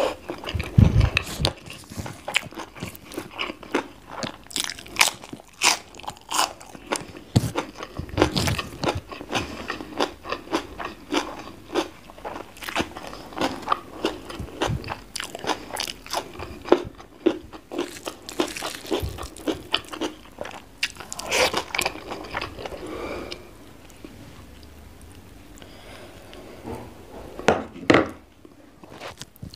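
Close-miked eating: chewing and crunching of a mouthful of rice and fried omelette in chili sambal, a dense run of crisp clicks and wet mouth sounds, easing off for a few seconds late on before a last burst.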